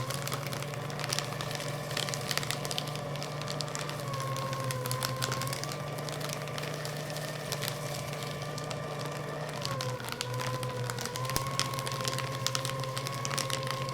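Electric paper shredder cutting through thick stacks of paper: a steady motor hum and whine over dense crackling as the paper is shredded. The motor's pitch dips slightly about ten seconds in.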